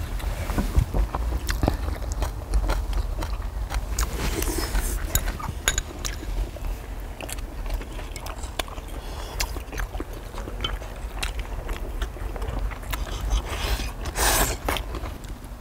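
Metal knives and forks clicking and scraping on a cast-iron cauldron-lid griddle while people chew, with a longer knife scrape near the end. A steady low rumble runs underneath.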